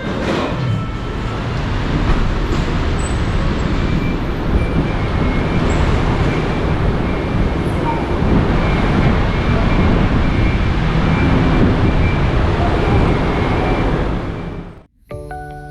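Loud, steady road traffic noise that cuts off abruptly near the end.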